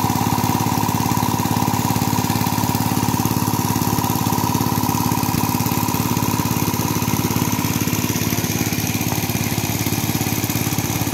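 A small engine running steadily at an even speed, with a fast, regular pulse.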